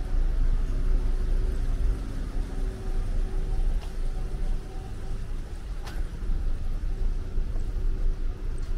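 Street traffic: the steady low rumble and hum of car engines running nearby, with a faint click about six seconds in.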